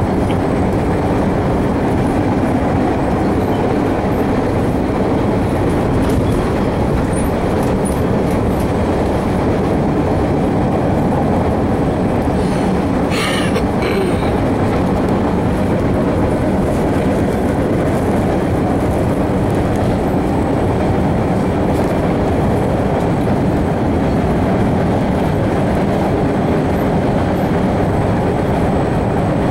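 MBTA Red Line subway car running at speed, heard from inside the car: a loud, steady rumble of wheels on the rails. A brief sharp, hissing noise cuts in about halfway through.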